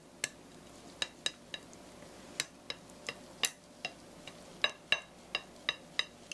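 Wooden chopsticks tapping against a ceramic plate while scrambled eggs are pushed into a mound: about fifteen light, sharp clicks at an irregular pace, each with a brief ring from the plate.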